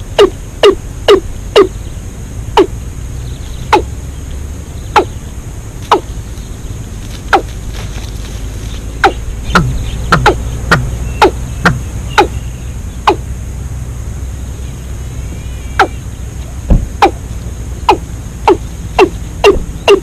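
Watercock calling: a long series of short, deep 'kok' notes, each falling in pitch, about two a second at first, then spacing out, quickening again around the middle, and pausing briefly before a fast run near the end.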